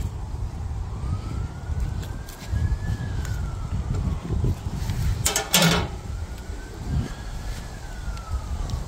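A distant emergency-vehicle siren on a slow wail, its pitch rising and falling twice, over a steady low rumble. A brief sharp clatter sounds a little past halfway.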